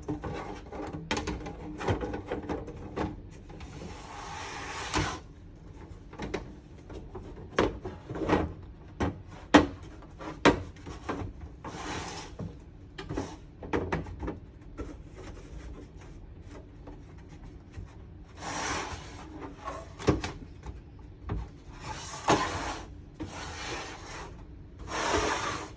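Hard plastic diorama parts clicking and knocking together as they are fitted onto pegs, at irregular intervals, with several short scraping rubs of parts sliding against each other.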